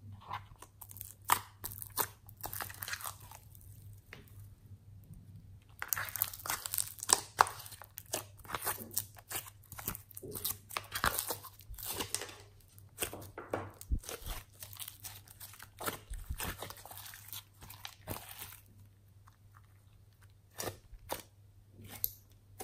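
Slime being squeezed and poked by hand, giving crunchy crackles and sticky popping clicks in irregular clusters. There is a short lull, then a long dense stretch, and a few lone clicks near the end.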